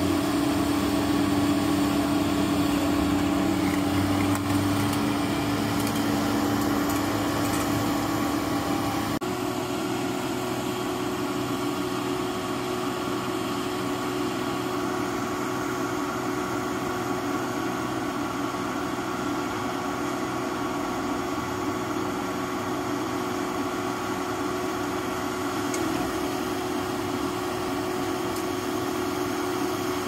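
Al-Jon 580 car logger's engine and hydraulics running steadily under load as the baler's lid compresses a car. About nine seconds in, the pitch steps up a little and the sound gets slightly quieter.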